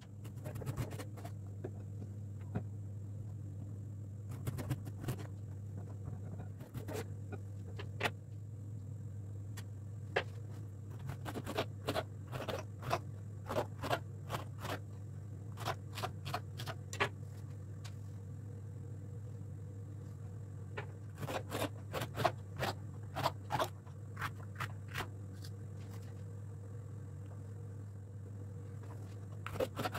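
Kitchen utensils clicking and scraping in quick runs of short taps, over a steady low hum.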